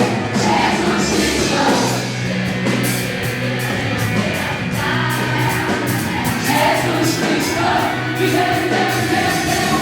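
Live Christian worship song: a band with a steady drumbeat, with voices singing together.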